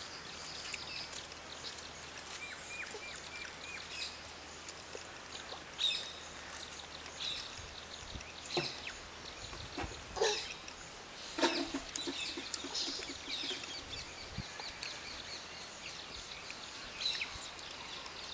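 Rural outdoor ambience: small birds chirping and calling throughout, with a few short knocks and clicks.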